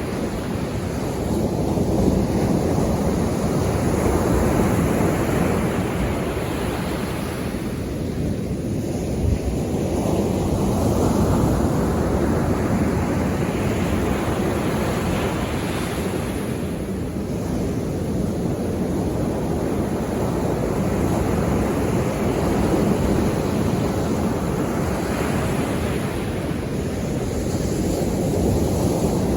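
Sea waves breaking on the shore as a steady wash of surf that swells and fades as each wave comes in, a few times over.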